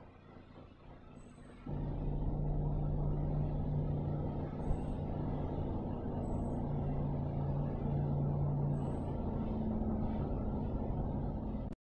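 A steady low engine rumble that starts suddenly about two seconds in and cuts off abruptly near the end.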